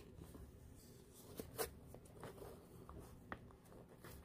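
Faint handling of paper and plastic packaging: soft rustles with a few light ticks scattered through.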